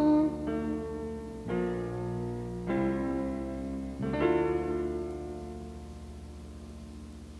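Keyboard playing the closing chords of a song: four sustained chords about a second apart, the last one, about four seconds in, left to ring and slowly fade out.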